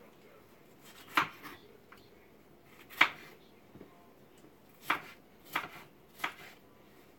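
Large kitchen knife chopping a bell pepper on a cutting board: five sharp knife strikes against the board at uneven intervals.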